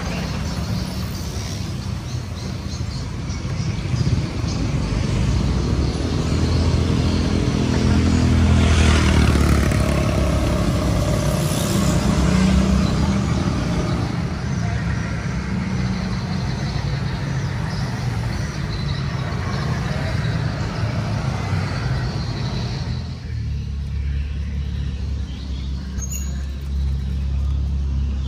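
Street traffic noise: a steady low rumble with motorbikes and cars going by, one passing close about nine seconds in.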